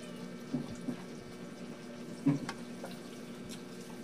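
Close wet eating sounds: noodles being chewed and lip smacks as a woman eats by hand, with a few short sharp clicks, the loudest a little past halfway. A steady low hum runs underneath.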